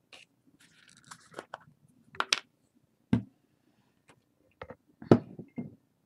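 Hands handling craft materials on a wooden tabletop: faint paper rustling, then a scatter of short sharp taps and knocks, the loudest about two seconds in and again about five seconds in.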